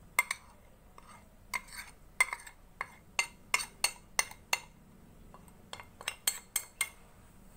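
Spoons clinking against bowls as measured spices are tipped into a bowl of yogurt: a string of about twenty short, sharp clinks at irregular spacing.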